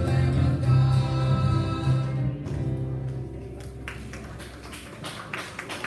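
A live worship band of keyboard, electric bass, guitars and singers holding the final chord of a song, which dies away about three seconds in. A few faint sharp knocks or claps follow near the end.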